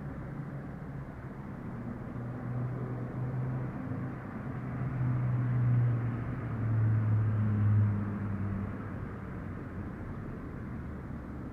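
Quiet room ambience: a steady low hiss with a low hum that swells louder about five to eight seconds in, then settles back.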